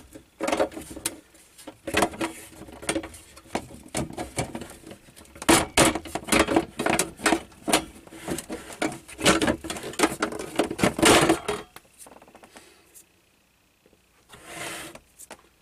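Thin sheet-metal cover of a Schumacher battery charger being worked loose and lifted off by hand: a long run of rattling clanks, clicks and scrapes that stops about twelve seconds in, then one short scrape near the end.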